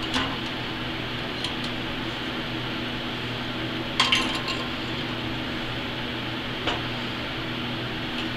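Steel combination square clinking against a welded steel plate as it is set down and moved into place: a few light metallic clinks, the loudest cluster about four seconds in, over a steady background hum.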